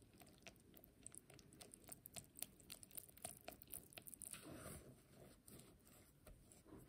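Faint, rapid clicks and squelchy scraping of a silicone spatula stirring flour into wet batter in a glass bowl, with a short stretch of steady scraping about four and a half seconds in.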